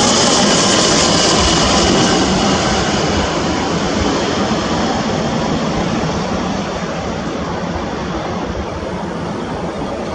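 Airbus A320's twin IAE V2500 turbofan engines passing and moving away: a loud, steady jet rumble and hiss with a faint whine that slides slightly lower, slowly fading.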